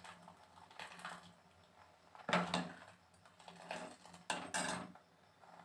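Metal ladle and steel bowl clattering and scraping against a metal cooking pot: several short knocks, the loudest about two seconds in and a few more near the end.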